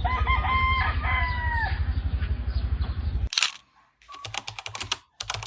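A rooster crowing once: a few short notes, then a long held note that drops off at its end, over a steady low rumble. A little over three seconds in, the sound cuts off with a sharp click, followed by quick runs of clicks.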